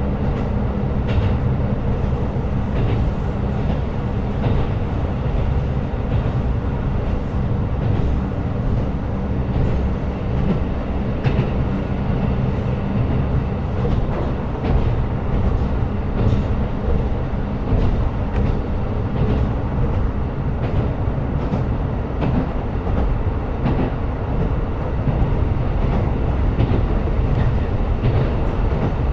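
KiHa 125 diesel railcar running along the line: a steady rumble of engine and wheels on rail, with irregular clicks from the track scattered throughout. A steady low engine note is heard at the start and fades after a couple of seconds.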